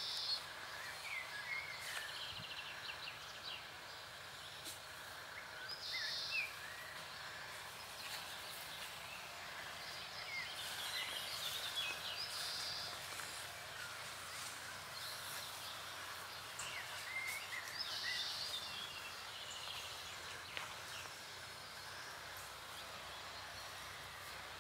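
Outdoor ambience with a songbird singing a short phrase of chirps that ends in a higher burst, repeated about every six seconds over a steady background hiss.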